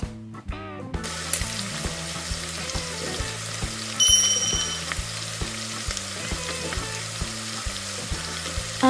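Dubbed-in frying sound effect: hot oil sizzling steadily, starting about a second in, over quiet background music with a repeating low note pattern. A brief high tone sounds about four seconds in.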